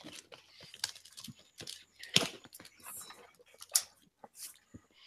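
Scattered light knocks, clicks and rustles of a cardboard shipping box being handled and opened, with two louder knocks about two and four seconds in.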